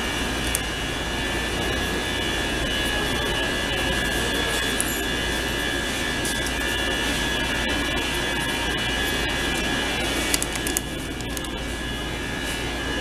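Steady mechanical drone with a few fixed high tones, like a fan or machinery running. A few light clicks come about ten seconds in.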